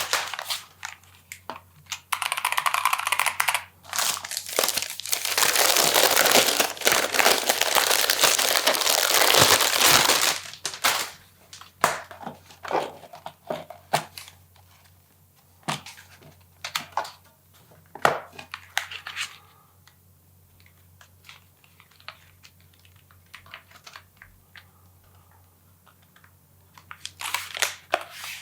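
Packaging being handled and unwrapped: several seconds of dense crinkling of wrapping, then scattered short clicks and taps that thin out, with a brief burst of crinkling near the end.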